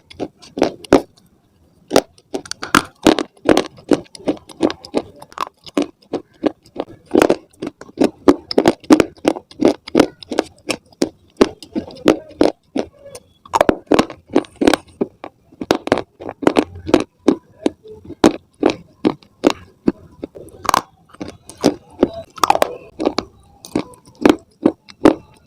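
Slate stone pieces being bitten and chewed, a rapid run of sharp, dry cracking crunches, several a second, with a short pause about a second in.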